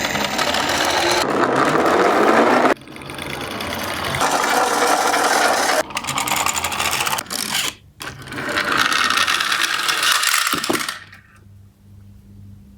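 Busy mechanical whirring and rattling in several loud stretches, each cut off abruptly, dying away about eleven seconds in to a faint low hum.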